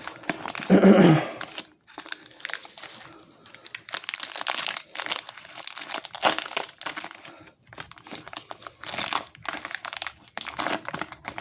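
Foil wrapper of a Pokémon Sword and Shield booster pack crinkling and tearing as it is opened and the cards are pulled out, in irregular crackly bursts. A short voice-like sound, the loudest moment, comes about a second in.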